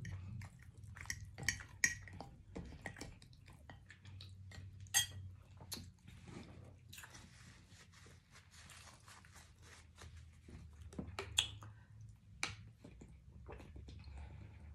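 Eating sounds: chewing and picking meat from pork neck bones, with a few sharp clinks of a fork against a bowl.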